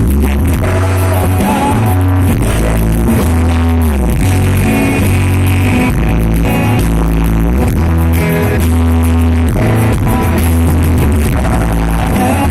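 Rock band playing loudly live, with a heavy bass line whose notes change about once a second under guitar.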